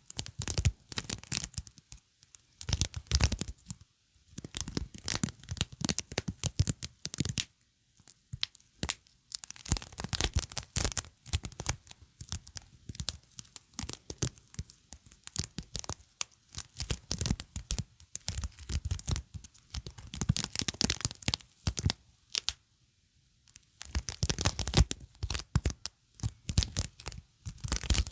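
Sticky surface being pressed and peeled apart close to the microphone: a crackling, tearing sound in repeated bursts of a second or two, with short pauses between them.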